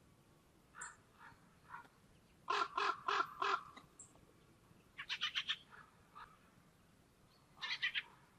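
Fieldfare giving its harsh chattering call, a dry 'chack-chack-chack': a few single notes, then three quick runs of four to six notes.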